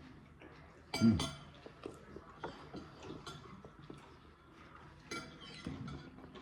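Cutlery and dishes clinking while people eat: light scattered taps, with a louder ringing clink about a second in and another about five seconds in.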